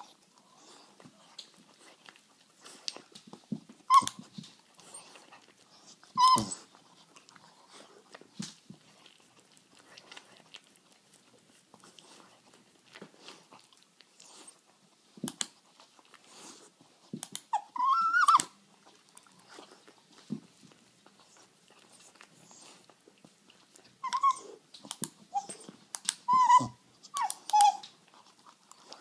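A small cocker spaniel–pug cross dog searching with its nose, making soft scattered snuffling and rustling noises. It gives short high whines about four and six seconds in, a longer rising whine a little past halfway, and a quick run of short whines near the end.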